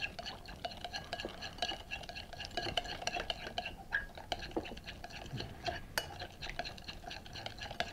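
Metal spoon beating a wet egg-yolk and mustard mixture in a glass bowl: quick, steady strokes with rapid clicks and light clinks of metal against glass.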